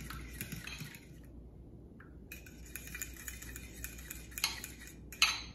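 A metal utensil stirring runny hot wing sauce in a glass bowl, with light scraping and clinking against the glass. The stirring pauses briefly about a second in and ends with one sharper clink.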